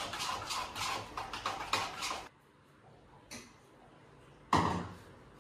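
Kitchen utensils clinking and scraping against a bowl in a quick run of short clatters for about two seconds. The sound then drops away suddenly to quiet, with one louder knock near the end.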